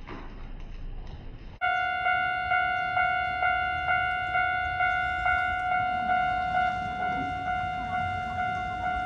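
Japanese railway level-crossing warning bell that starts suddenly about a second and a half in, then rings about twice a second, each ding made of several steady tones. The bell warns that a train is approaching the crossing.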